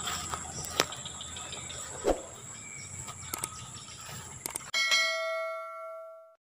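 Steady insect buzz over rural outdoor ambience with a few faint clicks, then, near the end, an edited-in bell-like chime, the notification-bell sound effect of a subscribe-button animation, rings once and fades before cutting off abruptly.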